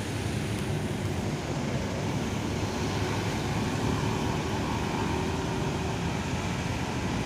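Steady low rumble with a fainter hiss of outdoor background noise, unchanging throughout.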